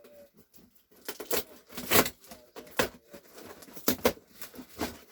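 Packaging being handled and unwrapped: a handful of sharp taps and knocks with rustling in between, spread unevenly across a few seconds.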